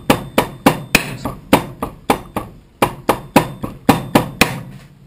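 Hammer blows on a rubber fuel hose lying on a metal block, a steady run of sharp knocks at about three a second that stops near the end. The hose is being beaten to soften it so it will stretch over a larger fuel filter's spigot.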